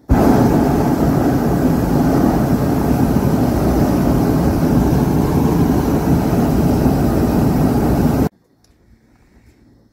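Hot-air balloon's propane burner firing, a loud steady rushing blast that starts suddenly and cuts off after about eight seconds.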